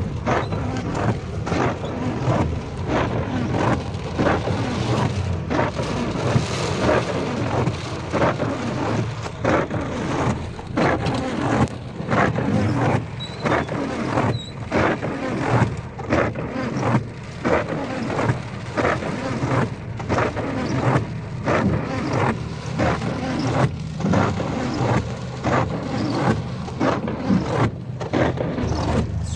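Heavy rain pouring, a dense irregular patter over a steady low rumble.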